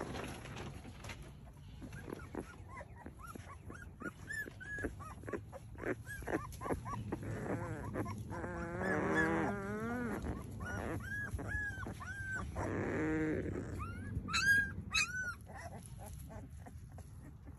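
Twelve-day-old Anatolian Shepherd puppies squeaking and whimpering in a litter. Many short high-pitched squeaks are followed by a longer wavering cry about eight seconds in, another around thirteen seconds, and a few shrill squeals near the end.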